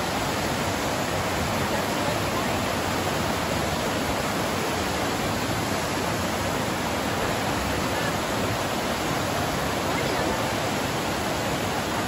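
Mountain river rushing over rocks and rapids: a steady, even rush of whitewater.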